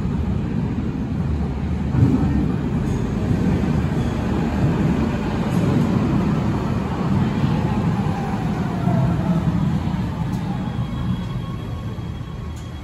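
KVB Stadtbahn light rail train pulling into an underground station: a heavy rumble of wheels on the rails with a whine that falls in pitch as it brakes. The rumble eases off near the end as the train comes to a stop.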